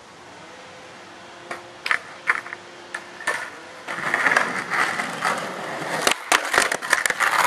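Skateboard on rough concrete: a few sharp clacks as the board is put down and pushed off, then loud gritty wheel roll from about four seconds in. Near six seconds come sharp pops and knocks as the board goes up onto a concrete ledge, followed by a harsh scraping grind of the trucks along it, a 50-50 grind.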